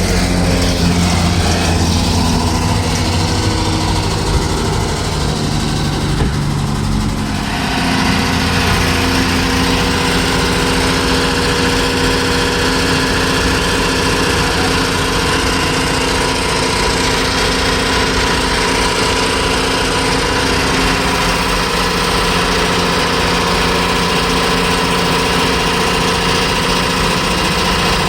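A motor running steadily, with a steady hum. About seven seconds in its sound changes: the low hum gives way to a noisier, higher-pitched running sound that then holds steady.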